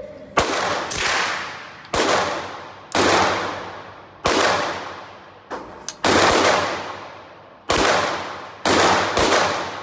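Suppressed B&T GHM9 9×19 mm semi-automatic firing about seven single shots at a slow, uneven pace, one every second or so, each followed by a long echo in an indoor range.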